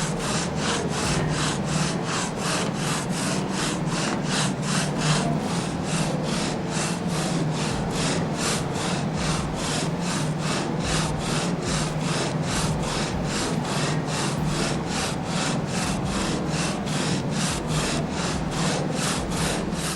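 A saw cutting through timber with fast, even strokes, about two and a half a second, each stroke a bright rasping rush.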